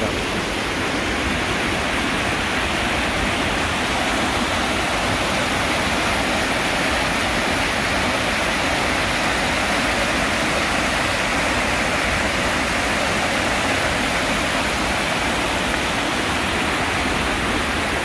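Stream water spilling over a low concrete weir: a steady rush of falling water that doesn't let up.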